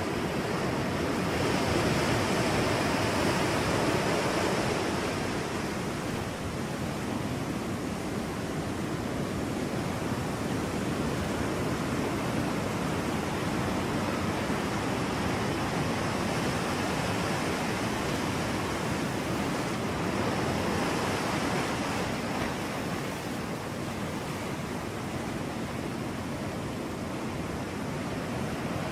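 Ocean waves washing on a shore: a steady rush of surf that swells twice, about two seconds in and again around twenty seconds in.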